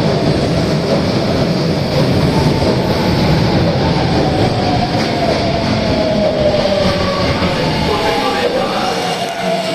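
Osaka Metro Tanimachi Line subway train running, with a steady rumble and a whine that slides slowly down in pitch as the train slows.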